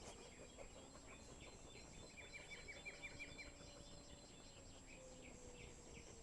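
Faint outdoor background with small birds chirping, including a quick run of about eight short chirps a couple of seconds in.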